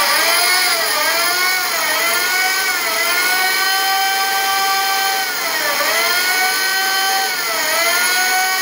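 Corded electric drill running under load, its motor whine sagging and climbing back up about once a second at first, then holding steady for a couple of seconds at a time with two more dips. The bit seems not to bite: it is dull.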